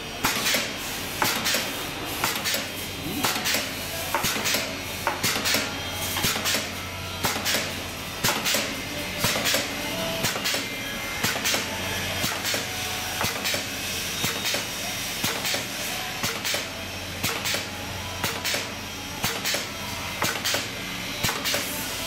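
Automatic tube cutting machine chopping plastic tubing into lengths: a sharp metallic clack from the cutter on every stroke, in a steady rhythm a little faster than one a second, over the low hum of the machine.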